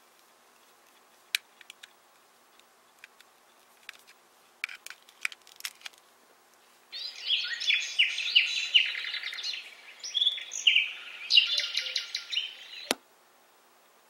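A few small plastic clicks from handling the USB cable and plug, then birdsong from the white noise machine's forest sound, played through its speaker for about six seconds. The birdsong starts abruptly and is cut off by a sharp click.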